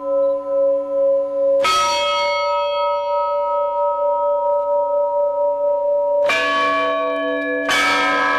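Russian Orthodox church bells rung by their clappers, heard while the peals of a newly built belfry are being set up. One long, wavering ring carries on, a fresh strike comes about one and a half seconds in, and two more strikes bring in other bells near the end, all overlapping.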